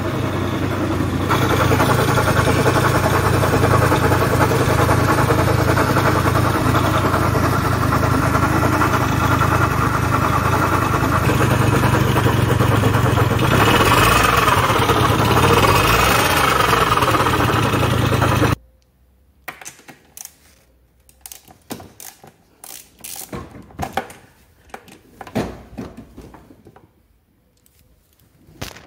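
Peugeot Vivacity 3 scooter engine running steadily just after starting, revved up and down briefly about 14 seconds in, then switched off, cutting out abruptly about 18 seconds in. Afterwards come a few scattered clicks and knocks.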